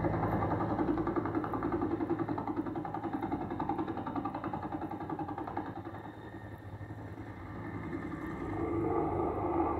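Helicopter flying low, its rotor chopping in a fast, even beat that fades a little midway and grows louder again near the end. Heard played back through a TV speaker.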